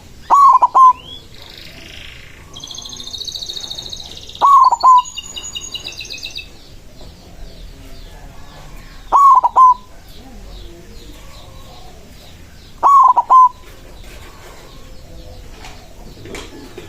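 White zebra dove (perkutut) cooing: four loud short cooing phrases, about one every four seconds. Smaller birds twitter faintly in the background between the first and second phrases.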